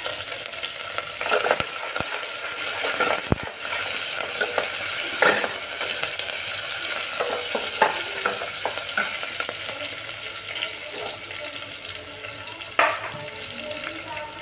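Green chillies, crushed garlic and whole spices (cumin, cinnamon, black pepper) sizzling in hot oil in a stainless steel pot. A steel ladle stirs them, clicking and scraping against the pot every second or two.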